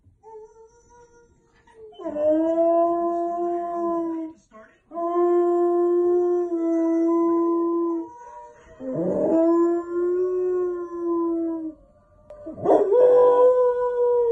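A Samoyed howling, with four long, steady howls of two to three seconds each and short breaks between them.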